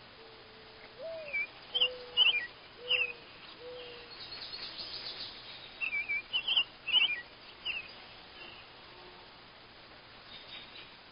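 Birds calling: a low, cooing phrase whose first long note slides upward, followed by three shorter low notes. Over it come two bouts of sharp, high chirps, with a brief buzzy trill between them.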